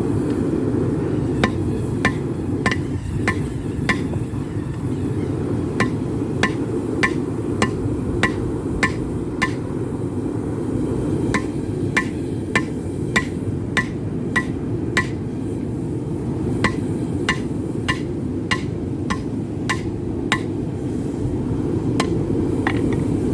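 Hand hammer striking hot rebar on an anvil, about two ringing blows a second in runs of five to nine with short pauses between, over a steady low roar.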